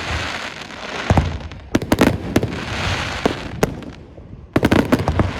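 Aerial fireworks shells bursting in quick clusters of sharp bangs, three volleys, each followed by a hissing, crackling trail as the stars burn out.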